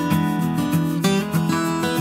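Background music: acoustic guitar strumming and picking at a steady pace.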